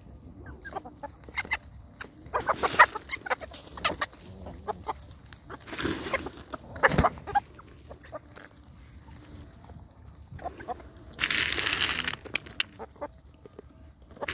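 Chickens clucking as they peck around grazing animals, with many short snaps and pecking clicks. Near the end a rougher, noisy sound lasts about a second.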